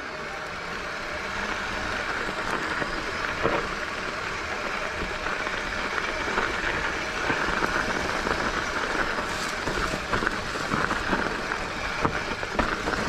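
Mountain bike riding down a dirt trail, heard from a camera mounted on the rider or bike: steady wind and tyre rumble with occasional sharp knocks as the bike rattles over rough ground.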